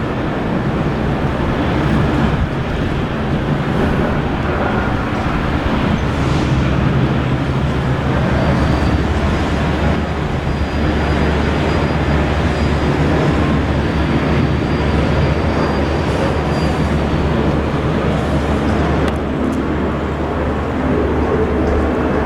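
Loud, steady rumble and rushing noise of a running engine, with a low hum throughout and a faint high whine from about nine to seventeen seconds in.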